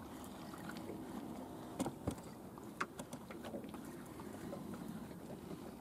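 Faint, steady water and boat noise with a few scattered sharp clicks and knocks.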